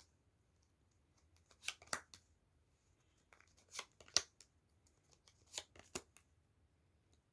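Tarot cards being drawn from the deck and laid down on a table: three short papery slides, each ending in a sharp tap, about two seconds apart.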